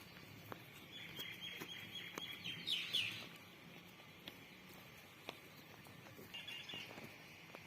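Faint bird calls: chirping from about a second in, a louder call near the three-second mark and a short call again near the end, with scattered small knocks.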